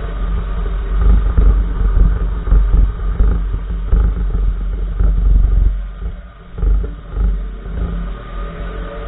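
Irregular clunks and knocks from the right front wheel of a 2014 Nissan March while driving, over a heavy low road rumble. They ease briefly about two-thirds of the way through. The owner suspects a worn tie rod or ball joint.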